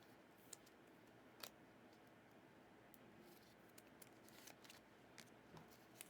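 Near silence with faint clicks and rustles of trading cards being handled, and two slightly sharper ticks about half a second and a second and a half in.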